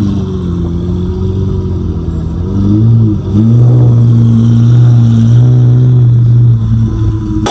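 Lamborghini Aventador SV's V12 through a Gintani exhaust, running loud: the revs ease down at the start, dip and climb back about three seconds in, then hold steady before falling away near the end.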